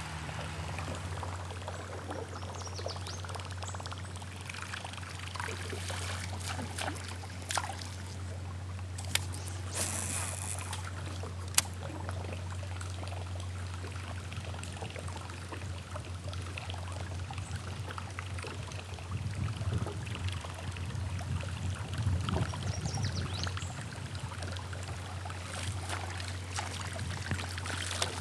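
Water trickling and dripping close to a kayak, over a steady low hum, with a few sharp clicks about a third of the way in.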